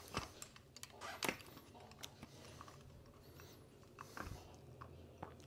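Faint, scattered light clicks and taps of metal parts being handled as an electric scooter's rear hub-motor wheel is fitted back onto its axle and the fixing screwed back on by hand, with a dull knock about four seconds in.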